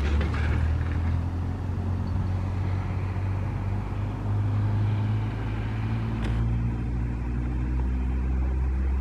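Low, steady mechanical hum and rumble, several low tones held steady, with a brief tick about six seconds in.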